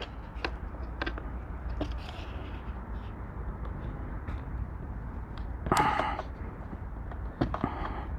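Light clicks and knocks from hands handling and prying at the opened lithium battery's plastic case and glued-in internals, with a louder brief scrape about six seconds in, over a low steady hum.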